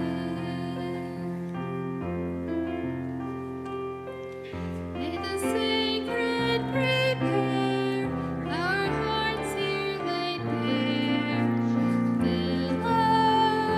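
A hymn sung with keyboard accompaniment: held chords and bass notes change every second or two under a slow, gentle vocal line.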